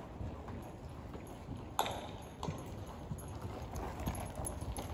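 Horse's hooves thudding in a loose rhythm on soft arena dirt as it moves in a circle on the lunge. A sharp click stands out a little under two seconds in.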